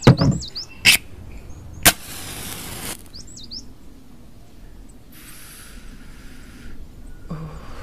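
Three sharp knocks in the first two seconds, the first and loudest as a brick is set down on a concrete floor, with small birds chirping twice. A hiss follows the last knock for about a second, and another hiss runs from about five to nearly seven seconds in.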